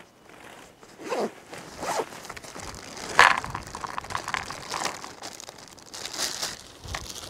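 Zipper on a dog's pack being pulled open in a few quick strokes, then a plastic zip-lock bag crinkling as dry dog food is poured from it into a collapsible bowl.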